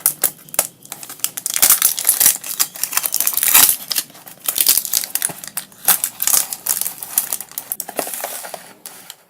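Outer packaging cover being torn open and pulled off a parcel box by hand: irregular crinkling and rustling with sharp crackles, dying away near the end.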